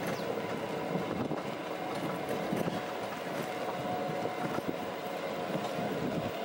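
Golf-cart-style resort buggy riding along a paved path, heard from on board: steady running and road noise with faint irregular rattles.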